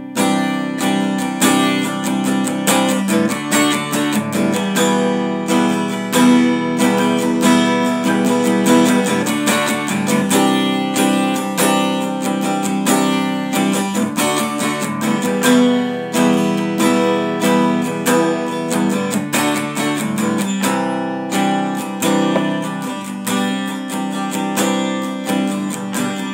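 Acoustic guitar strummed, chords played steadily without singing.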